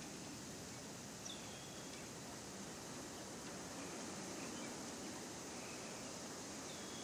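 Steady, faint outdoor hiss with a few brief, high bird chirps, one a little over a second in and another near the end.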